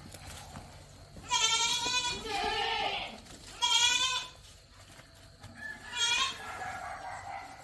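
Goats bleating: about four wavering bleats a second or two apart, one of them lower-pitched than the rest.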